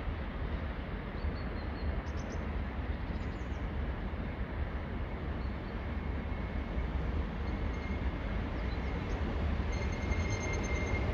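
Valmet-Strömberg Sm2 electric multiple unit approaching, its running noise over a steady low rumble slowly growing louder, with a faint high whine coming in about ten seconds in.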